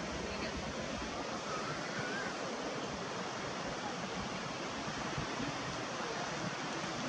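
Steady rushing noise of wind and sea water, even and unbroken.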